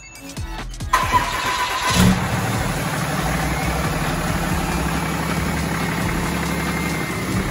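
Ram 2500's 6.7-litre Cummins turbo-diesel started: the starter cranks for about a second, then the engine catches with a burst and settles into a steady idle.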